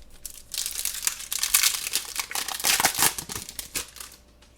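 Plastic foil wrapper of a hockey card pack crinkling as it is torn open, a dense run of crackles lasting about four seconds.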